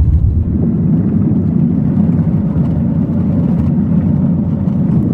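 A moving car's steady low road and engine rumble, heard from inside the cabin.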